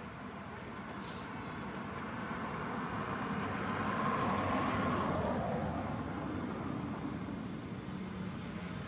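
Engine rumble of a passing motor vehicle, swelling to its loudest about four to five seconds in and then easing off. A short sharp high sound comes about a second in.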